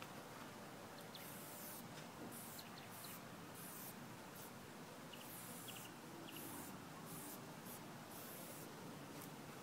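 Aerosol spray paint can hissing faintly in many short, irregular bursts as paint is sprayed onto a board.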